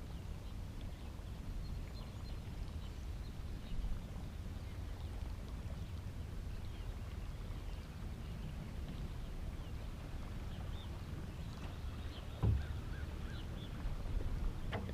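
Steady low rumble of water and wind around a small fishing boat, with faint bird chirps and a single dull knock about twelve seconds in.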